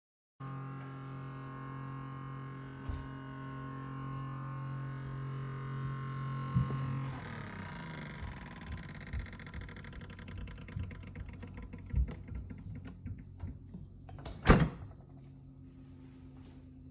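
Refrigerator running with a steady low electrical hum, joined by scattered knocks and clunks, the loudest a sharp knock a little before the end, after which a quieter hum carries on.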